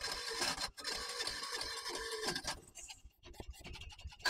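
Scooter's electric starter cranking the engine, which does not catch. The cranking stops about two and a half seconds in, followed by faint clicks.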